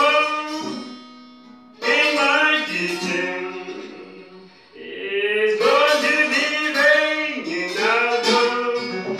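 Acoustic guitar played as a slow blues, phrases of chords and single notes plucked and left to ring. Fresh loud phrases start about two seconds in and again about five and a half seconds in.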